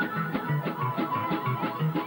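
Live traditional folk band music: a frula, the Serbian wooden shepherd's flute, plays a quick, ornamented melody over a steady bass-and-rhythm accompaniment pulsing about four times a second.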